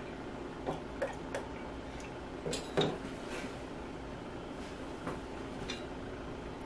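A few light knocks and clinks as a milk carton and a glass measuring cup are handled on a wooden counter, the loudest about three seconds in as the carton is set down.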